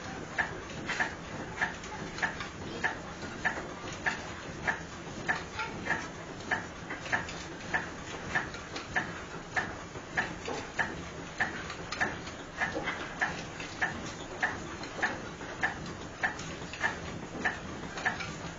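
Belt-driven plan sifter (an oscillating flour sieve) running, knocking in a steady rhythm slightly under two times a second over a continuous low mechanical rumble.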